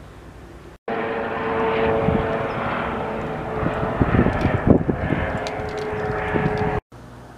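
Eurocopter EC130 turboshaft helicopter flying close overhead: a steady rotor and engine drone with a held tone, with irregular low thumps near the middle. The loud sound starts abruptly about a second in and cuts off abruptly near the end, with fainter helicopter noise on either side.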